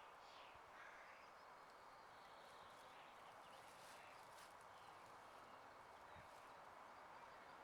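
Very faint outdoor spring ambience: a steady soft hiss with a few faint, distant bird chirps in the first few seconds.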